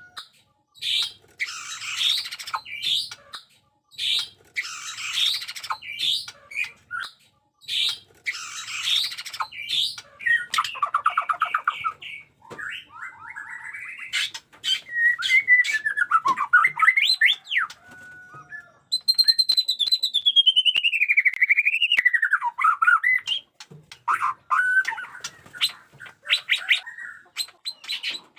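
White-rumped shama singing a varied song: harsh rasping phrases for the first ten seconds or so, then rattles, sharp clicks and clear whistled glides, including one long whistle that falls and then rises again past the middle.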